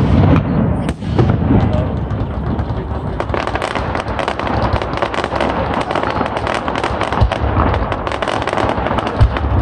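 Fireworks display: aerial shells bursting with deep booms under a dense, continuous crackle of many small pops, with a couple of sharper bangs near the end.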